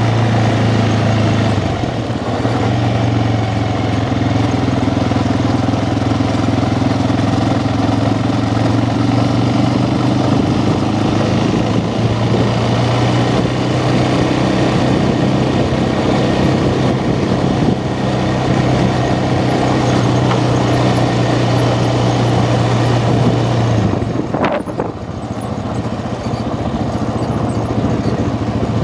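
ATV engine running at a steady speed with a constant low hum. A little over three quarters of the way through, the engine note drops away and there is a brief sharp sound.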